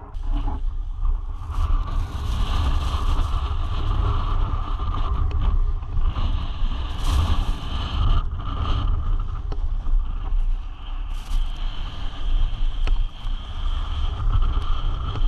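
Wind buffeting a GoPro's microphone over a steady low rumble, with a few short, sharper gusts of hiss.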